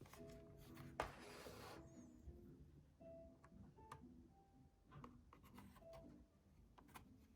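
Faint background music with a few small clicks and a short rustle about a second in.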